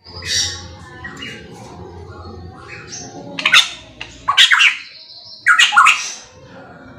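Pitohui calling loudly: a series of sharp, harsh notes, the loudest coming about three and a half, four and a half and five and a half seconds in.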